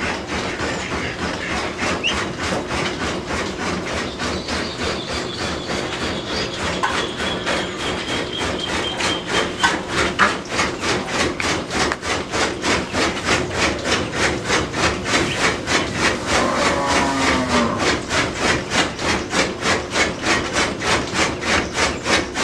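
A rapid, regular rasping or knocking rhythm of about five strokes a second, getting stronger in the second half, with a short falling call about three quarters of the way through.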